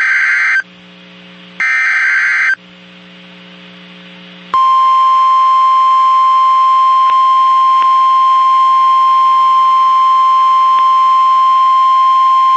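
Emergency Alert System signal opening a tornado warning: two harsh, buzzy digital SAME header data bursts, each about a second long and a second apart, then after a short pause the steady single-pitch National Weather Service alert tone of about 1 kHz starts, held loud and unbroken.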